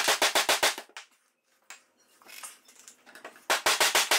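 Steel threaded rod of a wooden screw clamp being spun by hand through the jaw, giving a fast metallic clicking of about eight or nine clicks a second. The clicking stops about a second in and starts again for the last half second or so, with faint handling noise in between.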